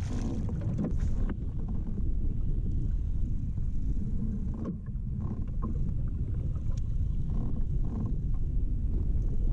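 Wind buffeting the microphone with a steady low rumble, over water washing against a kayak hull; the sound dips briefly about halfway through.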